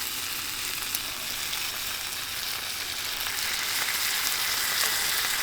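Food sizzling in a hot pan: a steady frying hiss with small scattered crackles.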